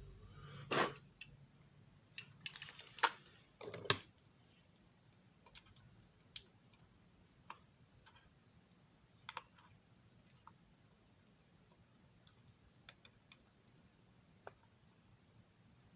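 Light clicks and taps from small model parts and hand tools being handled: a cluster of louder ones in the first four seconds, then sparse faint ticks.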